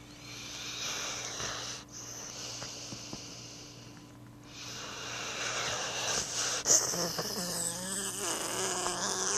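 A sleeping dog snoring: long noisy breaths that grow louder in the second half, taking on a low pitched drone near the end. A sharp click about two-thirds of the way through.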